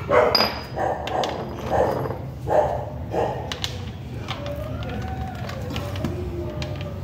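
A dog barking: about five barks in quick, even succession over the first three seconds, then quieter.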